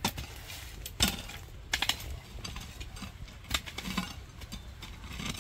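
Hand hoe chopping and scraping into soil to dig out cassava roots: a series of irregular sharp strikes and scrapes, about six in all.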